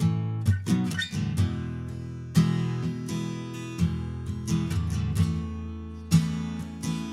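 Acoustic guitar strummed, with chords ringing between strokes, as an instrumental passage between sung lines; a short run of quick notes comes about half a second to a second in.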